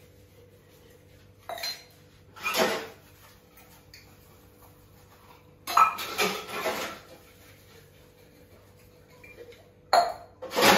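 Stainless steel tumblers and bowls clinking and clattering against each other and the stone counter as they are handled. The clatters come in short bursts: one about a second and a half in, another at two and a half seconds, a longer run around six to seven seconds, and more near the end.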